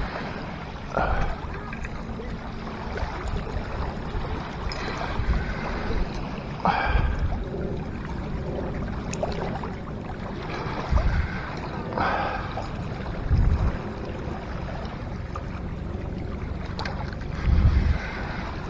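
Small waves washing steadily on a rocky lakeshore, with gusts of wind buffeting the microphone and a few short scraping sounds.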